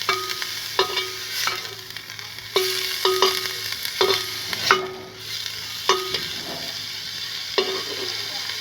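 Chopped onion sizzling in melted butter in a cooking pot. A utensil stirs it, knocking and scraping the pot about once a second with short ringing clinks. The onion is being sweated soft, not browned.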